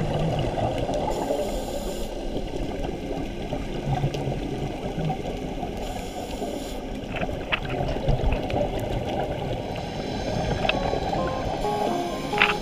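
Underwater sound of a scuba diver breathing through a regulator, with exhaled bubbles gurgling and rushing in a steady wash.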